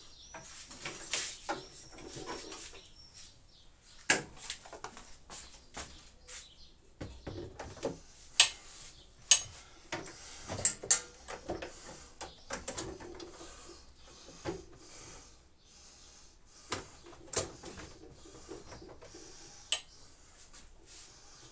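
Irregular knocks, clicks and scraping as a benchtop drill press is shifted and set in place on a pull-out shelf in a wooden cabinet. The loudest knocks come in a cluster around the middle.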